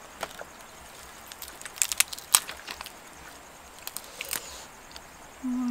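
Crisp skin and meat of a honey-grilled duck crackling and snapping as it is torn apart by hand, in scattered sharp clicks with the loudest cluster about two seconds in. A short hummed voice sounds right at the end.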